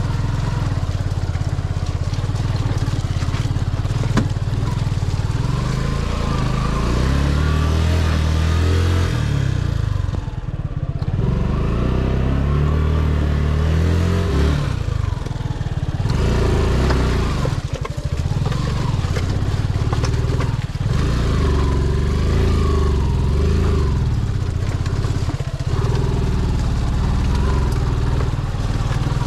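Motorcycle engine running under way, its revs rising and falling with the throttle and dropping off briefly a few times, on a rough, broken road.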